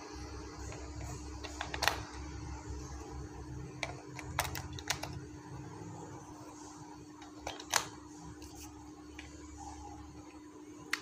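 AA batteries being pressed into the plastic battery compartment of a toy RC helicopter's handheld transmitter, then its cover fitted: about five sharp plastic clicks spread through, the loudest near the end. A steady low hum runs underneath.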